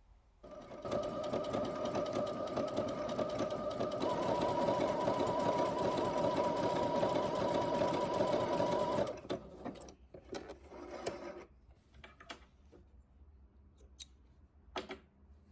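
Domestic sewing machine stitching an overlock stitch along a seam edge: a steady motor whir with a rapid stitching rhythm, its pitch shifting slightly about four seconds in. It stops about nine seconds in, followed by scattered clicks and knocks.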